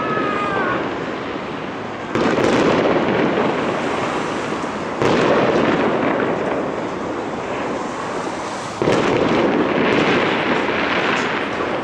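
Fireworks going off in a dense crackling barrage, with fresh loud surges about two, five and nine seconds in.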